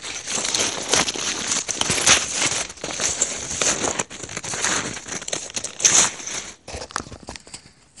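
Snowshoes crunching through deep snow, a dense run of crunching steps that thins out to a few scattered crunches near the end.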